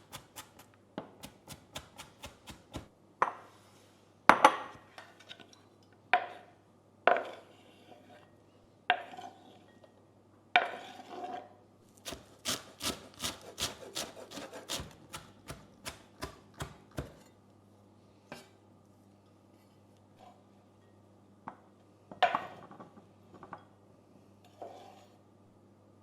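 A kitchen knife chopping on a wooden cutting board: runs of quick, even strokes, a few louder knocks and scrapes between them, and the strokes thinning out near the end.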